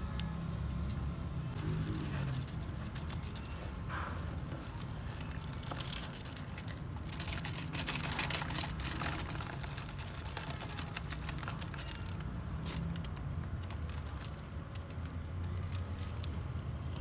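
Dry, withered plant stems rustling and crackling as they are handled and pulled out of a seedling tray, busiest from about six to ten seconds in, over a steady low background hum.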